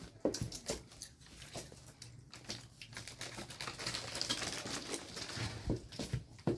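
Handling sounds: a run of light clicks and taps with a crinkling rustle that builds through the middle, and a few sharper knocks near the end.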